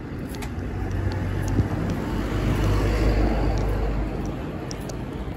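A road vehicle passing close by on a city street, its engine rumble and tyre noise swelling to a peak about three seconds in and then fading, over steady traffic noise.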